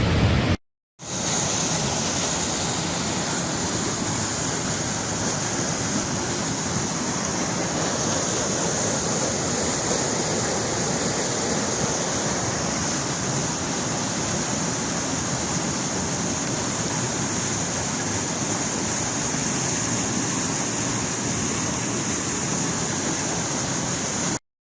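Water rushing steadily, an even unbroken rush that starts after a brief dropout about a second in and cuts off abruptly near the end.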